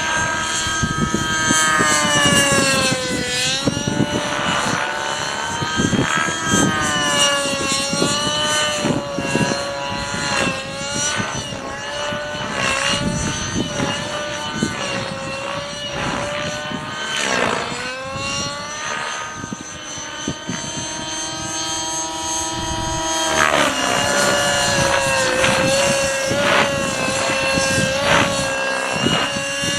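Align 600N nitro RC helicopter in flight: its two-stroke glow engine and rotor whine rise and fall in pitch as it manoeuvres, with sharp dips about 4 and 18 seconds in.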